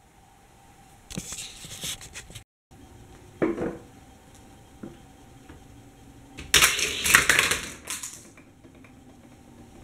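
Hard plastic toy track pieces and parts being handled and clicked together, in several bursts of rattling and knocking; the loudest burst comes about two-thirds of the way through.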